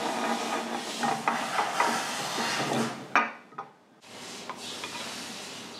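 Hand work on metal parts: scraping and rubbing with several light clinks, then a sharp click about three seconds in and a brief pause before a quieter rubbing resumes.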